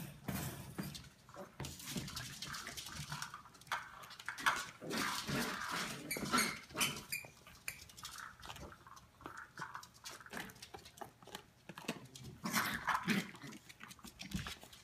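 Eleven-week-old Australian Terrier puppies playing together: short, high puppy calls mixed with many quick clicks and scuffles.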